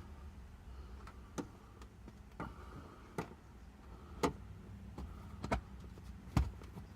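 Sharp clicks and taps from hands working at a Cybertruck's passenger seat back, about six of them at irregular intervals, over a low steady hum.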